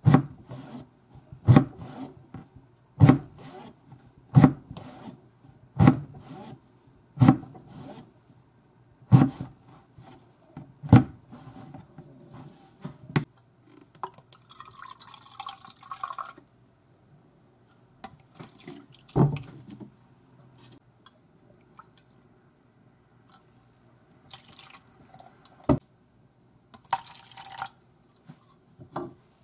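Chef's knife slicing an eggplant on a plastic cutting board: a sharp knock of the blade on the board about every one and a half seconds for the first eleven seconds. Soy sauce is then poured into a plastic measuring cup about halfway through, and water is poured from the cup into a bowl near the end.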